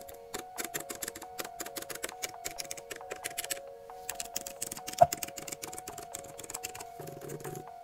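Fast typing on a MacBook Pro's scissor-switch keyboard: a dense run of light key clicks with a brief pause partway through and one much louder click about five seconds in, over steady background music.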